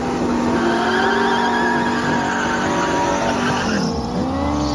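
Dodge Challenger doing a burnout, engine held at steady high revs while the rear tyres spin and squeal. About three and a half seconds in the revs fall away, then blip up and down a few times near the end.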